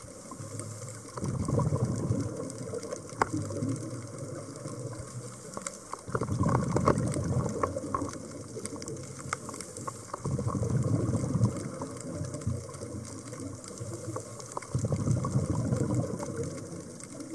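Scuba diver's exhaled bubbles rushing and crackling out of the regulator, four bursts a few seconds apart, one for each breath.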